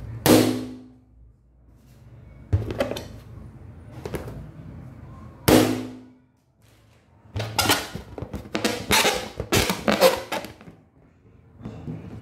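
Inflated latex balloons popping: two loud, sharp bangs about five seconds apart, each with a short ringing tail, and a weaker hit between them. Then a few seconds of rapid crackling and rustling as the balloons are handled.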